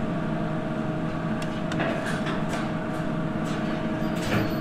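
Steady hum of kitchen machinery holding a constant tone, with a scattering of light clinks and scrapes of a serving utensil on the pot and dish as stew is dished up.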